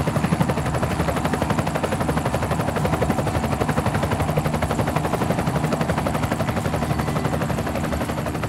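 Fireman Sam toy helicopter's electronic helicopter sound, set off by its side button: a rapid, steady rotor chop.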